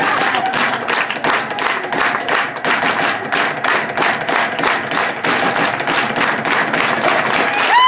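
Rhythmic hand clapping, many sharp claps in a fast, even beat, with no melody instrument playing.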